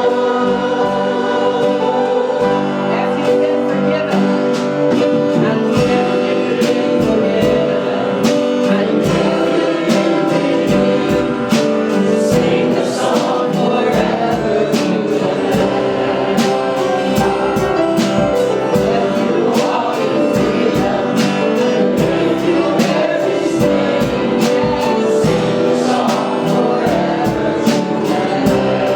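Church worship music: voices singing together over a band's sustained chords, with a steady beat of drum hits.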